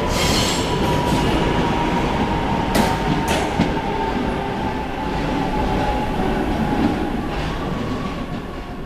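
RATP MF88 metro train pulling out and running off into the tunnel: a steady rumble with a whine that slowly drops in pitch, two clacks of the wheels over rail joints about three seconds in, and the sound fading away near the end.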